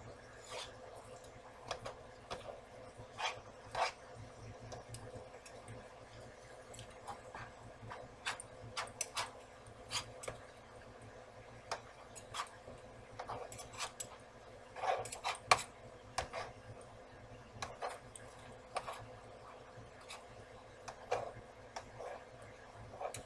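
Spatula and fork clicking and scraping against a nonstick frying pan as sausage is chopped into small pieces in it: irregular light taps, with a louder cluster about two-thirds of the way through.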